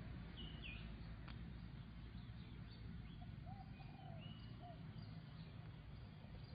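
Faint outdoor ambience: a few brief high bird chirps, about half a second in and again around three to four seconds, with some short lower calls, over a steady low rumble.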